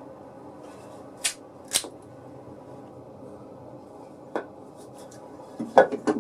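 A few sharp clicks and taps of hard objects being handled: two in the first two seconds, one more past the middle, then a louder quick cluster near the end, over a low steady background hum.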